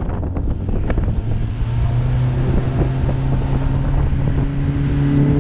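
Outboard motor driving a fishing boat under way: its note rises over the first couple of seconds and then holds steady at speed, with wind buffeting the microphone.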